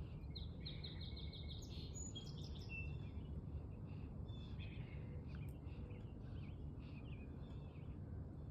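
Small birds chirping and calling, with a quick run of repeated notes early on followed by scattered whistles and chirps. Underneath is a steady low background rumble.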